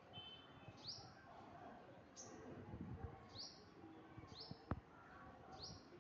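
A small bird repeating a short, quickly rising chirp about once every second or so, faint, with softer bird notes between the chirps and a single sharp click near the end.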